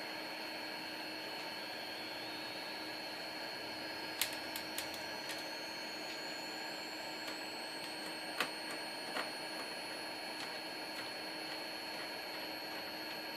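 Steady hiss with a faint high whine slowly rising in pitch, broken by a few light clicks and taps about four seconds in and again about eight to nine seconds in.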